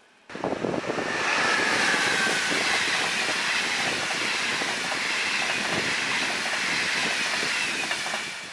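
ČD Railjet express train passing close at speed: a loud steady rush of wheels on rail and moving air, with a faint high whine that sinks slightly in pitch. It starts abruptly about a quarter second in and eases off near the end as the last cars go by.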